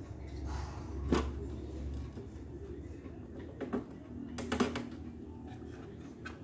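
Irregular light clicks and knocks from hands handling a TV's circuit board and its wire connector, the sharpest about a second in and a cluster near the middle. A low hum runs underneath for the first couple of seconds.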